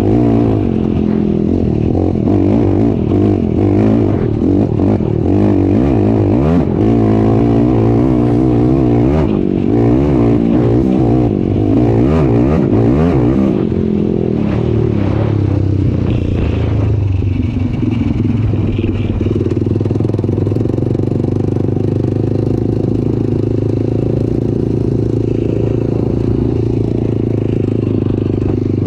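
Off-road vehicle engine running while driving across sand. Its pitch rises and falls quickly with the throttle for the first dozen or so seconds, then holds steady.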